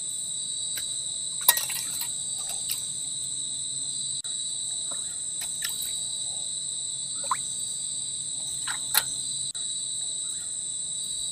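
Night insect chorus: crickets trilling in a steady high-pitched drone, with a few short clicks and light knocks, the sharpest about a second and a half in and again about nine seconds in.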